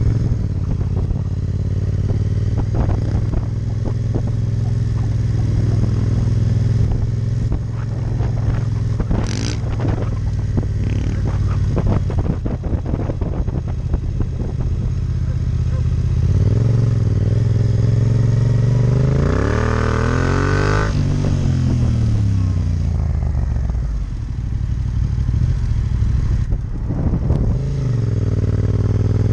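Yamaha MT-07 Tracer's 689 cc parallel-twin engine running at low speed, with the revs rising and falling several times around twenty seconds in as the bike accelerates.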